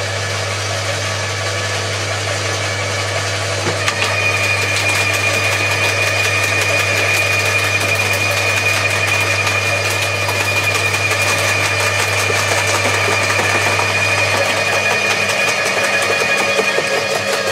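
Electric roller garden shredders (Bosch AXT 2300 and Atika LH 2500) running with a steady low motor hum. About four seconds in, a steady high whine and dense crackling join as thuja branches are fed in and crushed by the roller. The low hum drops away about three seconds before the end.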